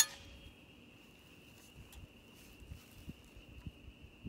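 Suppressed 5.45x39 subsonic rifle shot through a Dead Air Nomad suppressor right at the start, dying away within about half a second, then a lull of about four seconds before the next shot begins at the very end. A faint, steady, thin high tone runs under the lull.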